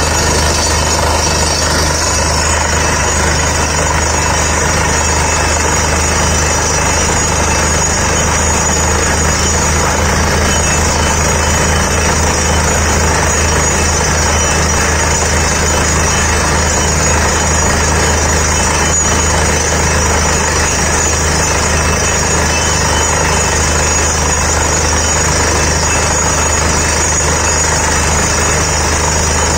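Truck-mounted borewell drilling rig running steadily at full work: its diesel-driven compressor and drilling machinery give a loud, unbroken mechanical drone with a low hum, while compressed air blows rock dust out of the bore.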